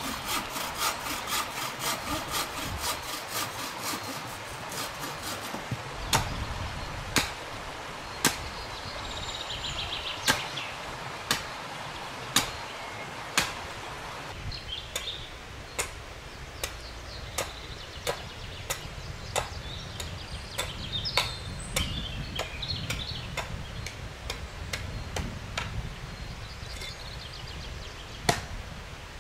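A bow saw cutting through a branch in quick, even strokes for about five seconds. Then sharp blows on wood about once a second, turning to lighter, quicker knocks from about halfway, with faint birdsong.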